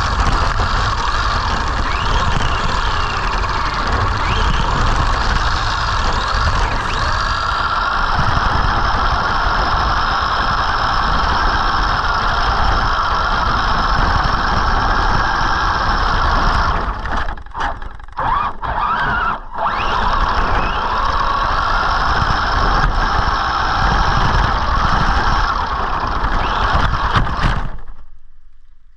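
Arrma Senton electric RC truck driving through snow: motor and drivetrain whining steadily over a low rumble, cutting out briefly three times about two-thirds through, then falling away near the end.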